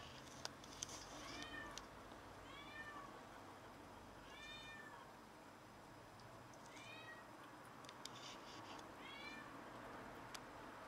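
A cat meowing: five short, faint meows, each rising and falling in pitch, spaced a second or two apart. A few sharp clicks come in the first two seconds.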